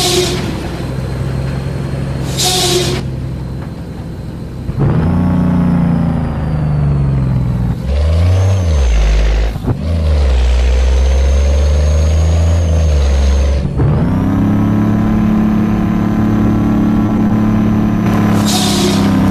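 Scania truck's diesel engine pulling hard under load: it runs steadily, then about five seconds in it opens up much louder, with its pitch dropping and climbing again at gear changes around the middle and about two-thirds in. Short blasts of compressed air hiss from the truck's air system about two seconds in and near the end.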